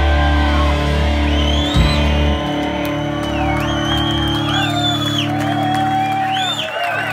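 Rock band's closing chord ringing out on electric guitar and bass guitar, with a drum hit about two seconds in, while the audience whoops and whistles over it. The held chord dies away near the end.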